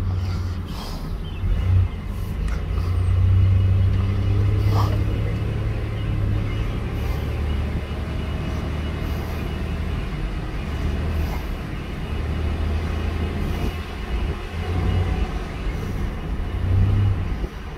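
Pickup truck's engine and drivetrain droning low as it drives slowly, heard from inside the cab. The drone swells louder a few seconds in and again near the end as the throttle changes.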